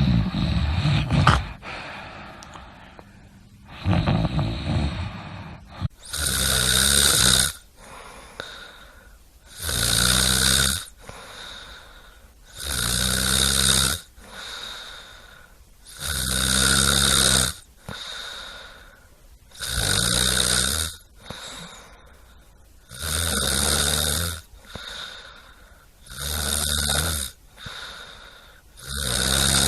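A sleeping person snoring: a regular series of loud, buzzing snores, about one every three seconds from about six seconds in. Before that come two shorter, rougher breaths.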